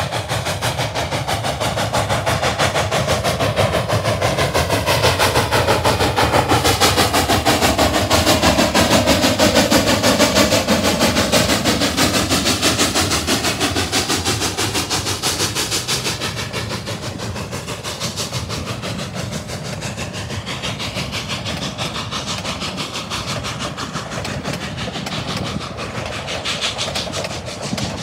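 Cumbres & Toltec narrow-gauge steam train passing close by. The sound is loudest about a third of the way in, then eases as the passenger cars roll past with their wheels clicking over the rail joints.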